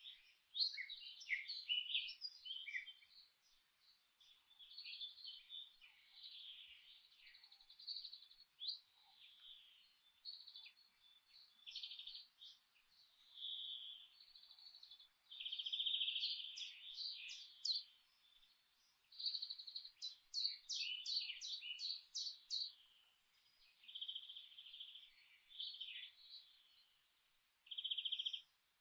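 Songbirds singing: an unbroken string of short chirps and warbled phrases, with two runs of quick repeated notes in the second half.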